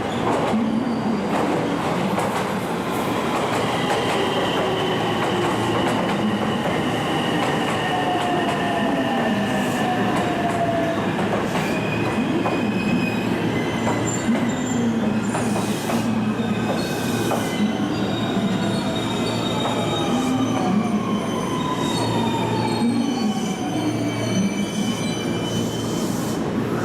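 Electric train moving through the platform, its wheels squealing in high drawn-out tones over a steady rumble, with whining tones that slowly fall in pitch.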